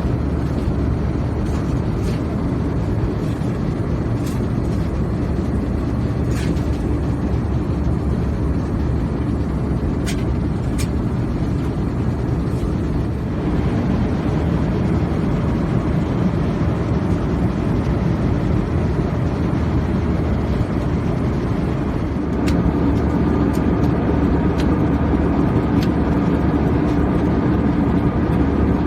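Airbus A321-200 cabin noise, a steady rumble of engines and airflow heard from inside the cabin. It grows louder about 22 seconds in, when a steady hum comes in, and a few faint clicks sound earlier.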